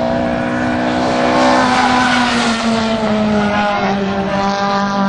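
A classic Japanese race car's engine running hard as it approaches and passes close by. The rush of noise is strongest about two seconds in, and the engine note drops a little as the car goes past.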